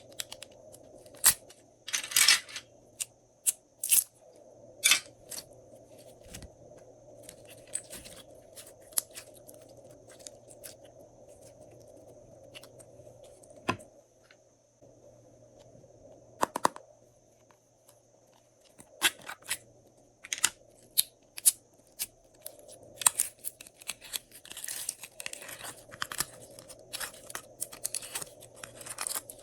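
Glossy slime being handled and mixed, giving irregular sticky clicks and crackling pops, which come thicker and faster near the end.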